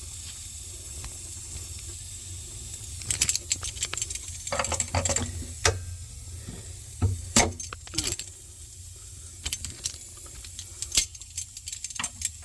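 Metal clicks and clinks of hand tools on copper refrigeration tubing as pinch-off pliers are tightened down. They come in irregular clusters, the loudest about halfway through, over a steady faint hiss and a low hum.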